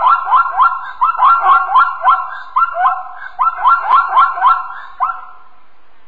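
Zebra barking call: a rapid series of high, yelping barks, about four a second, that stops about five seconds in.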